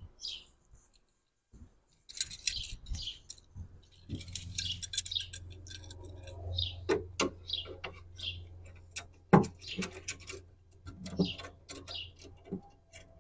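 Light metal hardware clinking and jingling as it is handled, with scattered sharp clicks and a low steady hum through the middle.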